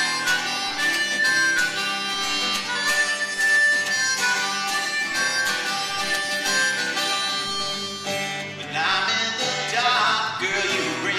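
Harmonica solo played into a microphone over strummed acoustic guitar, mostly held notes with short runs. About eight seconds in the harmonica gives way to a man singing over the guitar.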